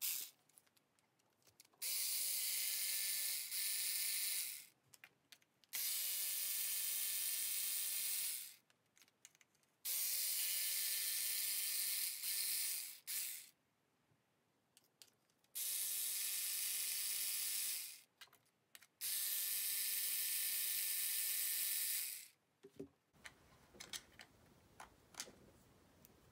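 Small cordless electric screwdriver running in about six short bursts of one to three seconds each, its motor giving a steady whine while backing out screws from an RC crawler's transmission. Light clicks of small screws being handled near the end.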